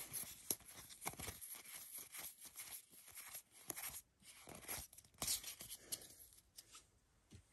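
Pokémon trading cards flipped through by hand, each card slid from the back of the stack to the front: a faint, irregular run of soft rustles and small clicks as card stock rubs and snaps against card stock.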